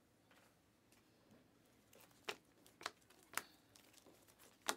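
Chrome trading cards being flicked through by hand, one at a time. After about two seconds of near silence come four short, sharp card snaps, roughly half a second apart, with a longer gap before the last.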